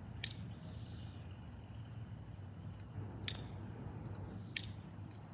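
Three short sharp clicks of a handheld lighter being flicked to light a firework fuse, the first near the start and the last two about a second and a half apart, over a faint low hum.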